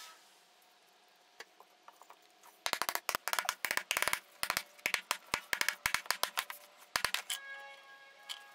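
Quiet at first, then a quick, dense run of sharp clicks starting a little under three seconds in. Near the end a few held musical notes come in alongside sparser clicks.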